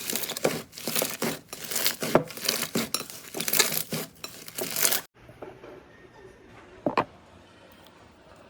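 Slime being squeezed and pressed by hand, with dense crackling and popping that cuts off abruptly about five seconds in. Then it is much quieter, with a single sharp click near seven seconds.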